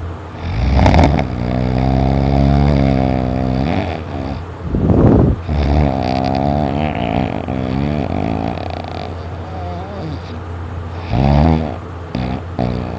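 Loud snoring with heavy breathing: long, drawn-out snores with a buzzing pitch, each several seconds long, about three of them.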